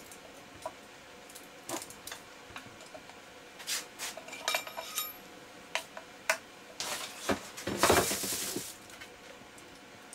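Hand tools clinking and tapping on the metal screws and frame of an electric unicycle's hub motor. There is a brief ringing clink about halfway through, and a louder rustling scrape lasting about two seconds near the end.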